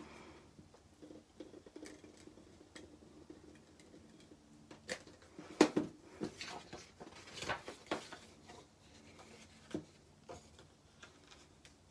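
Quiet handling sounds of paper crafting at a table: scattered light clicks, taps and soft rustles of paper and adhesive being worked along the edges of a paper envelope, with two sharper knocks about five and a half and seven and a half seconds in.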